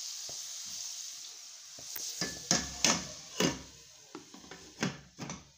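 Diced zucchini and onion sizzling in a stainless steel pot, the sizzle fading, then about half a dozen sharp clinks and knocks as a glass lid is put on the pot and settled.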